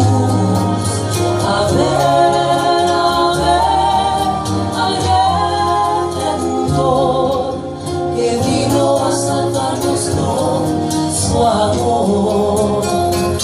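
Live band music in a soulful gospel-jazz style, with piano, bass and drums, and a voice singing over it.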